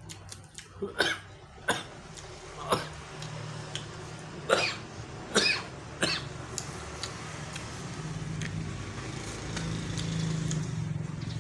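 A man coughing hard, about six sharp coughs over the first six seconds, after choking on a mouthful of food.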